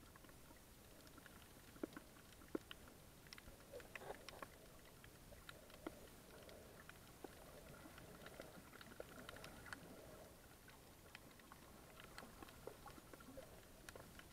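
Faint underwater ambience heard through a camera's waterproof housing: a low steady hiss with scattered, irregular sharp clicks and crackles.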